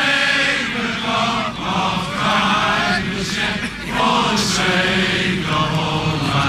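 A large crowd of men singing together in unison, in long held notes that change about once a second.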